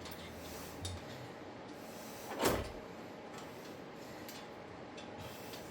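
Handling noise while fitting a wheel hub assembly's mounting bolts: a faint knock about a second in and one short scraping clunk about two and a half seconds in.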